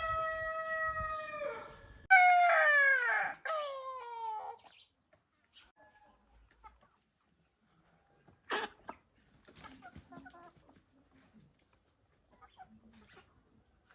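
A rooster crows, a long held note dropping into a loud final note that falls in pitch and ends about four and a half seconds in; after that only a few faint knocks.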